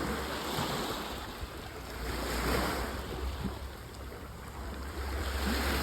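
Sea waves washing on the shore, swelling and easing, with wind rumbling on the microphone.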